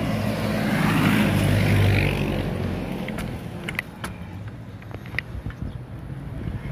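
A passenger jeepney driving past close by: its engine noise swells over the first two seconds and fades by about three seconds in. A few light clicks follow.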